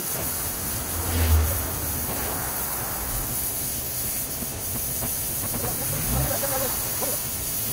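Pressure washer spray hissing steadily, with a low thump about a second in.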